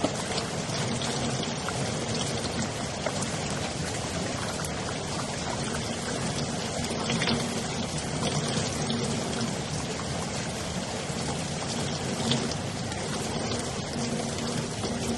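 Steady rain falling, a constant hiss with scattered drops ticking and a few louder drips.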